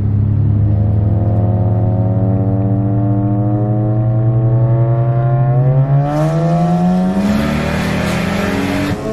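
Ford Falcon engine accelerating hard. The revs climb slowly at first, then rise quickly from about six seconds in with a rush of hiss, then drop sharply at a gear change just before the end.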